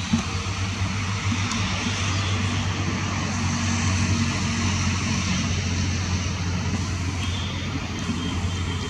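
Steady low rumble of distant engine noise, even throughout.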